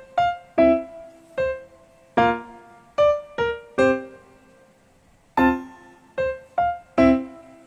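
Background piano music: a simple melody of single struck notes, each ringing and fading, with a short pause about halfway through.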